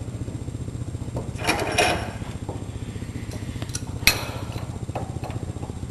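Metal air-hose fittings clinking and knocking as a threaded coupler piece is handled and put on, with a cluster of knocks about a second and a half in and one sharp click about four seconds in. A steady low hum runs underneath.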